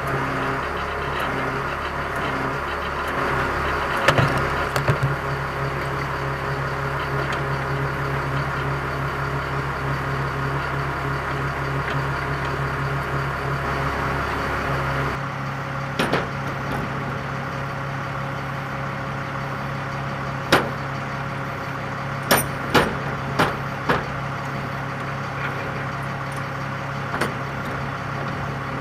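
An engine idling steadily, its deepest part dropping away about halfway through, with several sharp knocks over it in the second half.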